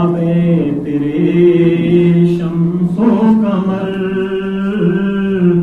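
A man chanting a hamd, a devotional praise poem to God, unaccompanied, in long held notes that glide slowly in pitch.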